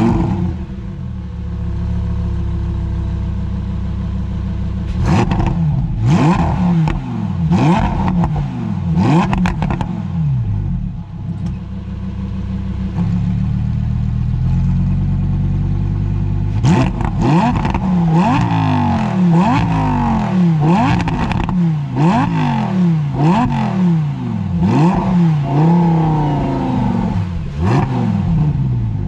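Lamborghini Huracán EVO's 5.2-litre naturally aspirated V10 settling from its start-up flare into idle. It is then blipped in quick stationary free revs, each rising sharply and dropping straight back. There is a short run of revs about five seconds in, a return to idle, and a longer run of about a dozen revs from just past halfway.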